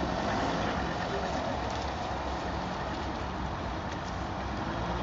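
A convertible car's engine running as the car moves off slowly: a steady low hum under an even hiss.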